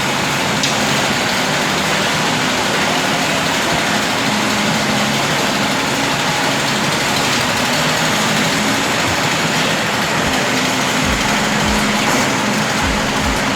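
An engine running steadily under a loud, even hiss, with a few low thumps near the end.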